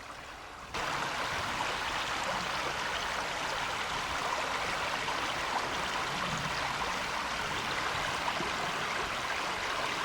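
A creek running over rocks: a steady rushing of water that starts suddenly under a second in.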